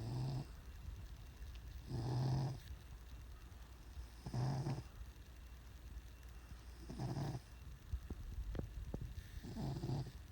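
Domestic cat snoring in its sleep: five short snores, each about half a second long, coming regularly about every two and a half seconds.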